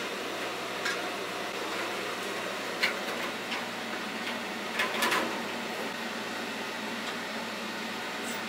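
Steady fan-like whooshing, with a few short knocks and clatters of plastic PVC duct fittings being handled and pushed into place. The sharpest come in a quick cluster about five seconds in.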